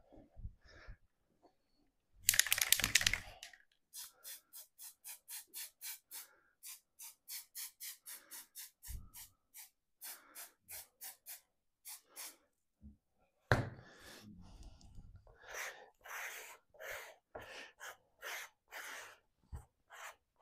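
Hand work on paper at a table: a short hiss about two seconds in, then quick, even scraping strokes about three a second, a sharp knock, and more uneven strokes.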